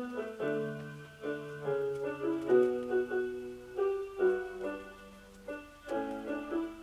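Background piano music: a melody of separate notes over lower held notes.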